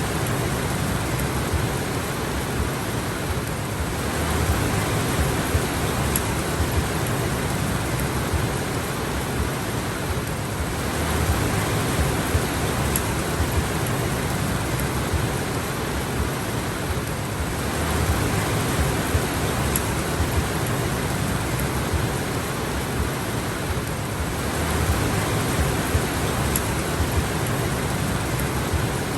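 Steady rain, a dense even hiss that swells slightly about every seven seconds.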